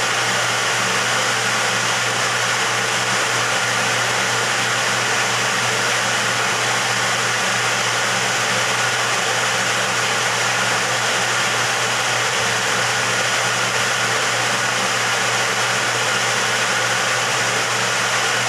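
A small electric motor running steadily, an even whirring hiss that holds at one level without a break.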